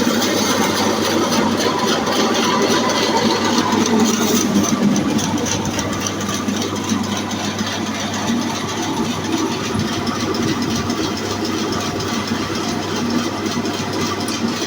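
Horizontal band sawmill running steadily, most likely sawing a log: a constant low hum under dense, gritty machine noise.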